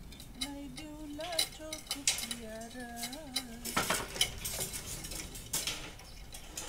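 Repeated light metallic clinks and taps from hand work inside a wooden foundation form, with a louder scrape a little past the middle. A voice makes wordless sounds for about three seconds in the first half.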